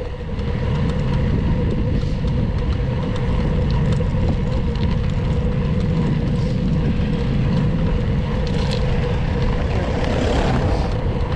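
Steady wind rush and tyre road noise from a bicycle being ridden on a road. A passing car swells up about ten seconds in.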